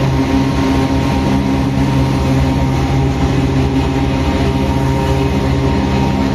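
GE C44-9WM (Dash 9) diesel-electric locomotive running steadily under way: a low, even engine drone with a thin steady whine above it.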